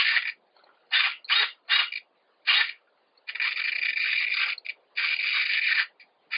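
Savöx 1257 MG metal-gear tail servo on an RC helicopter creaking as it moves. It makes five short jerks in the first three seconds, then sweeps of about a second each with a steady rasping gear noise.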